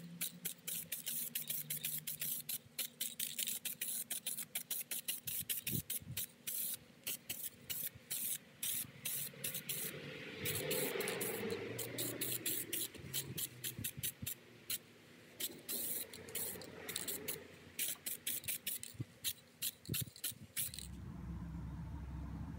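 Aerosol spray paint can hissing in many short bursts, with one longer steady spray about halfway through; the spraying stops about a second and a half before the end.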